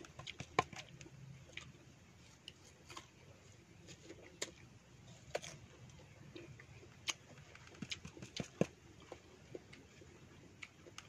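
Close-up eating sounds of a person chewing fresh fruit: irregular wet clicks, lip smacks and small sucking noises, with no steady rhythm.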